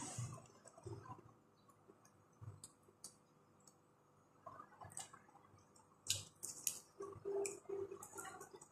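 Quiet eating sounds: scattered soft clicks and wet squishes of fingers pulling meat off the bone and lips smacking while chewing, sparse in the middle and busier in the last few seconds.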